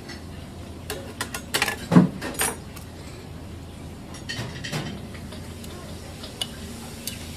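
Metal utensils clinking and knocking against a ceramic serving platter, in a quick cluster with the loudest knock about two seconds in, then a few lighter clinks.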